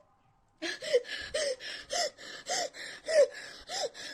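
A woman gasping in a quick run of short, sharp voiced breaths, about six in three and a half seconds, each with a brief rise and fall in pitch; she is struggling to breathe through the burning of a very hot chip.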